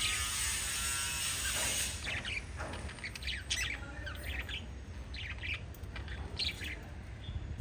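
Small pet parrots chirping in many short, high calls, several birds overlapping. For about the first two seconds a dense hiss covers them, then the chirps stand out clearly.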